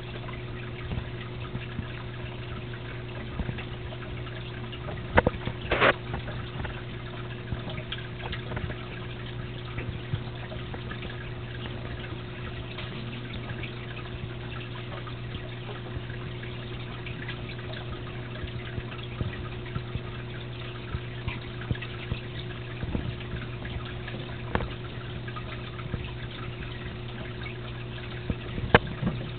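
Water trickling and dripping in a small aquarium over a steady low hum, with a couple of sharp clicks about five to six seconds in and another near the end.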